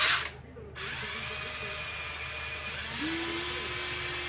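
Electric motors of a Huina 1593 RC toy excavator whining as it moves, after a short loud burst of noise right at the start. About three seconds in, a second, lower-pitched motor joins in and the whine gets a little louder.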